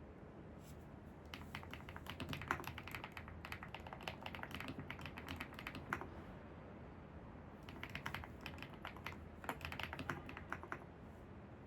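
Computer keyboard being typed on: two runs of rapid keystrokes, the second starting about a second and a half after the first stops, over a steady low background hum.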